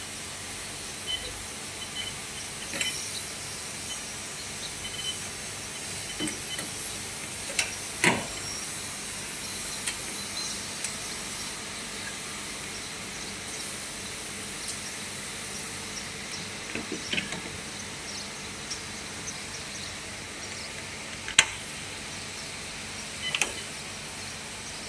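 Scattered knocks and clicks of parts being handled on a welding machine's engine, over a steady hiss; the sharpest click comes about 21 seconds in.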